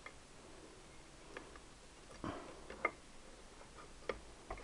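A handful of light, irregular metallic clicks and clinks as steel gears and a selector fork are worked off the mainshaft of a Triumph T120R four-speed gearbox.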